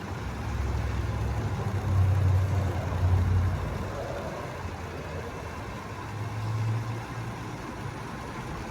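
Jeep Grand Cherokee engine idling with the air conditioning running: a steady low hum that gets louder twice, about two seconds in and again around six seconds in.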